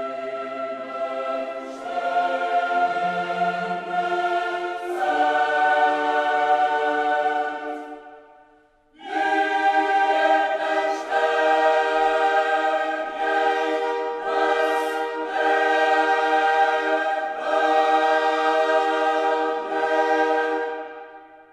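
Choral music: a choir singing long, sustained chords in two phrases. It breaks off briefly about eight seconds in and fades out near the end.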